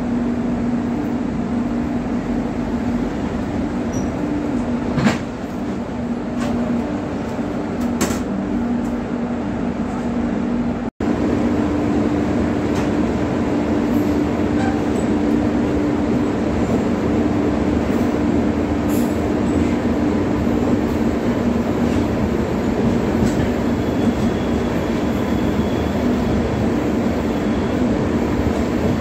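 An LHB passenger coach running on rails: a steady rumble of wheels and track with a constant hum and a few sharp clicks. About eleven seconds in, after a cut, the noise is a little louder as the train runs through a tunnel.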